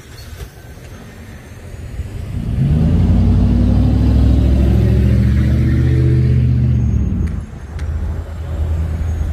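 A heavy engine passing close: it builds over the first couple of seconds, is loud for about four seconds, and drops away about seven seconds in, leaving a lower steady rumble.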